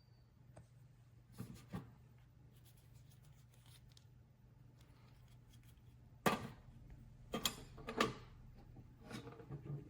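Faint handling clicks and knocks from a small metal step-pedal trash can, loudest just after six seconds, over a low steady hum.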